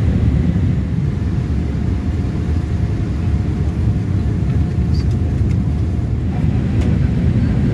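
Steady low rumble of a Boeing 787-8 airliner's cabin in flight, the drone of its engines and airflow heard from a window seat on descent. A faint steady hum sits over it for a couple of seconds near the middle, and a few faint ticks come near the end.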